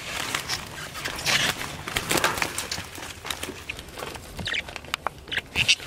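Budgerigars chirping and chattering in a small crowded wire cage, with scattered sharp clicks among the irregular high-pitched calls.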